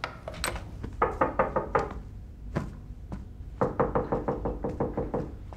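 Knocking on a wooden hotel-room door: a quick run of about five knocks, a single knock, then a longer fast run of about a dozen knocks.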